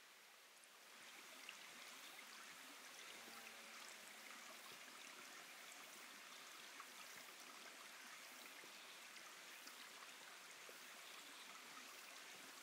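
Faint, steady rush of a small mountain stream flowing over rocks, swelling slightly about a second in.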